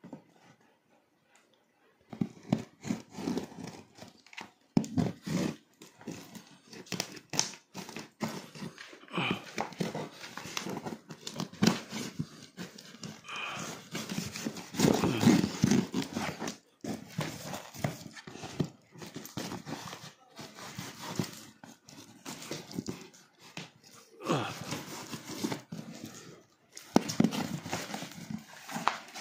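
Kitchen knife sawing and slicing through layers of plastic packing tape and duct tape on a cardboard shipping box. It makes a long run of irregular scraping and ripping strokes, starting about two seconds in.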